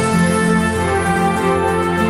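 Background music with sustained, layered tones and a steady bass line.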